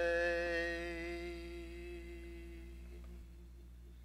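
A man's unaccompanied singing voice holds the song's last note at a steady pitch and fades out, ending about three seconds in.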